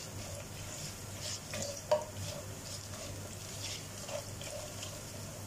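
Whole spices being stirred in hot oil in a pan: scattered scrapes and clicks of the utensil against the pan over a light sizzle, with one sharp clack about two seconds in.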